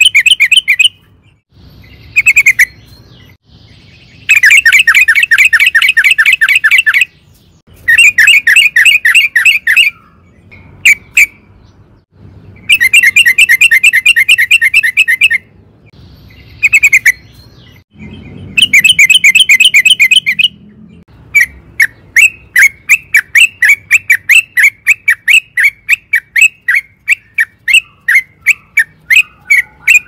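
Yellow-vented bulbul singing: loud bursts of rapid chattering trills, each a couple of seconds long with short gaps between. About two-thirds of the way in it changes to a steady run of separate sharp notes, about two to three a second.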